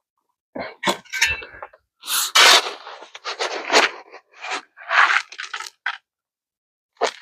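Dry concrete mix scraping and crunching as it is poured and worked into a hole around a ground anchor, in irregular gritty bursts with a few sharp clicks.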